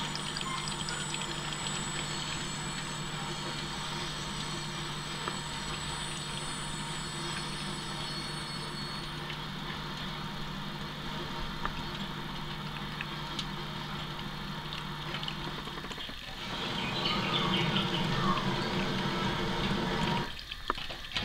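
Thin stream of water trickling from a kitchen tap into a stainless-steel sink, with small ticks as a cat laps at it, over a steady low hum. The water sound grows louder for about four seconds near the end, then drops out abruptly.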